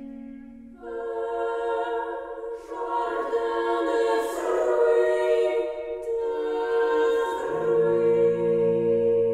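Small a cappella vocal ensemble singing slow, sustained chords. A fuller chord comes in about a second in, and low voices join near the end.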